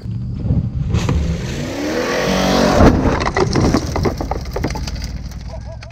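Old Ford F150 pickup's engine revving hard, its pitch climbing about two seconds in, with repeated knocks and clatter as the truck crashes through rough dirt ground. The sound cuts off suddenly at the end.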